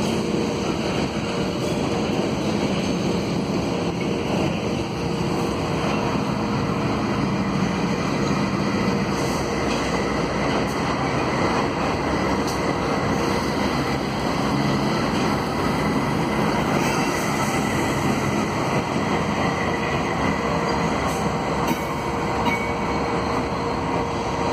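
Diesel-electric freight locomotive running as it slowly moves a train of hopper wagons along the track: a steady rumble of engine and wheels on rail, with a faint steady whine throughout.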